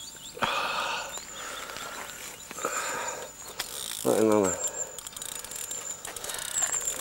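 Ratcheting clicks and rustling from fishing tackle and the landing net as a freshly netted carp is held at the bank, with a short grunt about four seconds in.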